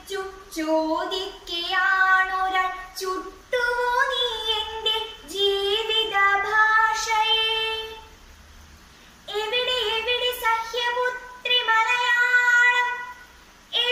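A girl singing solo without accompaniment: a slow melody with long held notes and ornamented turns between them, with a short pause for breath about eight seconds in.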